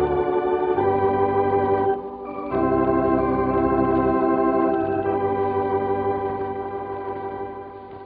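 Organ playing sustained chords over a held bass line, with a brief break about two seconds in, then a long held chord that slowly fades away near the end.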